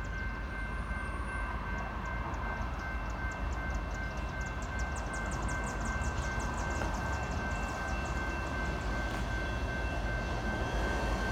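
CN freight train rolling past: a steady low rumble with regular rapid clicking of the wheels and an unbroken high-pitched whine held throughout.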